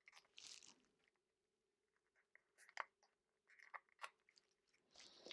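Faint, scattered crinkles and small ticks of paper handling: foam adhesive dots being peeled from their backing and pressed onto a small cardstock piece.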